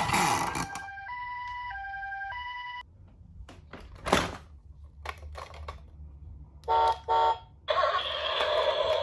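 Toy ambulance's electronic two-tone siren alternating high and low ('pee-po'), cutting off about three seconds in. A few knocks follow, then two short beeps and a louder noisy sound near the end.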